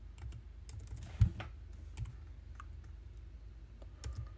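Typing on a computer keyboard: scattered, irregular keystrokes with one louder key strike about a second in, over a low steady hum.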